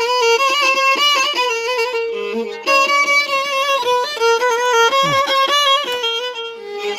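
Background music: an instrumental melody of held notes with quick ornaments.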